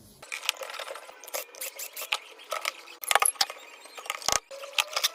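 Irregular small clicks, taps and metallic clinks as the soymilk maker's motor and its housing parts are handled and taken apart, a few sharper knocks among them.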